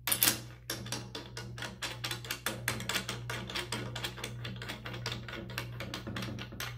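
Rapid run of light clicks, about eight a second, as the limb lock nut of a takedown recurve is spun by hand into the riser's limb pocket.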